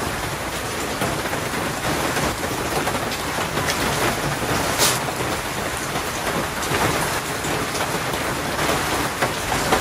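Steady rain falling, with a single brief click about five seconds in.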